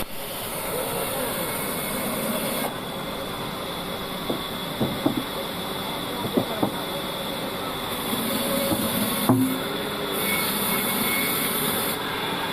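Old bandsaw sawmill running through a dry log: a steady mechanical run with a hiss of the blade in the wood that comes and goes, and a few short wooden knocks in the middle.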